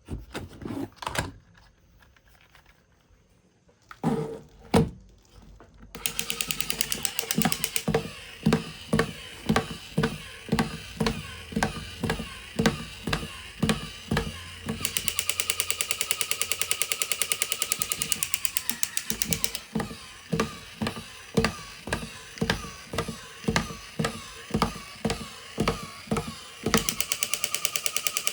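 A few clicks and thunks, then from about six seconds a battery-powered toy vehicle running: a small motor and gears rattling fast, with regular knocks about one and a half times a second.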